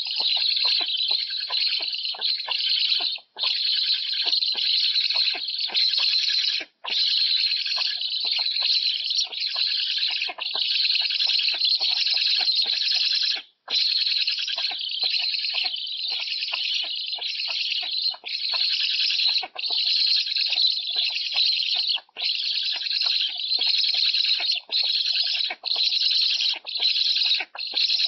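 Young black storks begging for food at the nest: a loud, hoarse, high squealing that runs almost without a break, with a few short pauses for breath.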